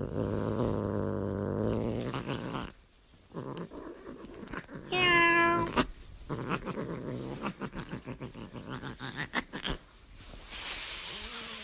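A kitten growling low and steadily, then one short, loud meow about five seconds in, followed by rougher growling with crackling clicks.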